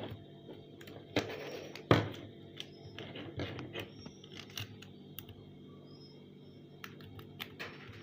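Handling noise from a small LCD screen and fingers tapping and knocking against a fridge's top, with irregular clicks and a sharper knock about two seconds in, over the steady hum of the running fridge.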